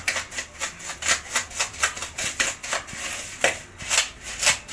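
Metal spoon scraping and clacking against a plastic mixing bowl as margarine and sugar are creamed together by hand. The strokes come fast and regular, about five a second.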